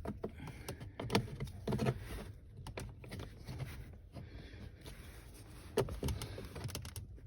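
Plastic trim removal tool working at the edge of a car's lower dash trim panel: a few light knocks and clicks, about one and two seconds in and again twice near six seconds, over soft scraping and handling noise.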